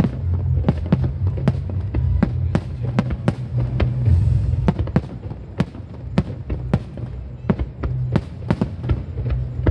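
Aerial fireworks display: many sharp bangs and cracks, two or three a second, over a continuous low rumble.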